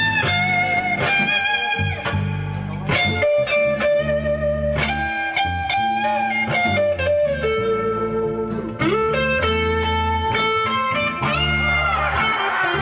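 Live blues-rock band playing an instrumental passage: an electric guitar plays a lead line of long held notes with bends, over bass guitar and a steady beat.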